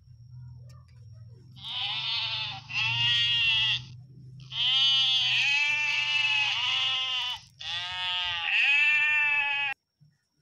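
Goat bleating four times, the third call long and drawn out, each bleat wavering in pitch.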